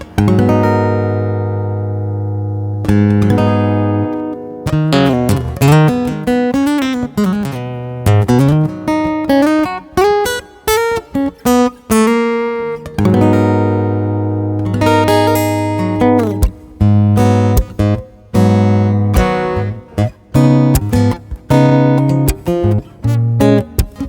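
Headway HJ-V115ASE acoustic guitar being played: a couple of strummed chords left to ring, then a run of single-note melody lines, then more ringing chords and quicker short strums and picked notes near the end.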